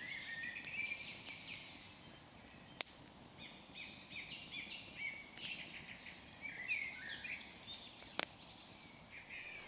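Many short, high chirps coming irregularly, with two sharp campfire pops, about three seconds in and again near the end.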